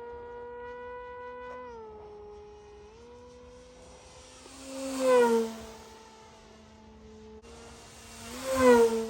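Model aircraft motor buzzing steadily at a high pitch, dipping briefly about two seconds in. It then makes two close passes, about five and eight and a half seconds in, each getting loud and then dropping in pitch as it goes by.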